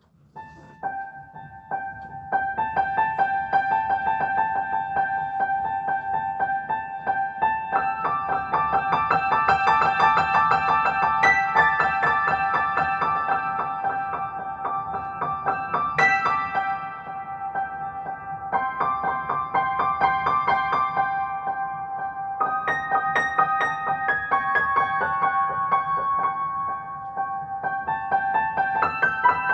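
Solo piano improvisation starting from silence: rapid repeated notes in the upper middle register, one note struck over and over while the notes above it change every few seconds.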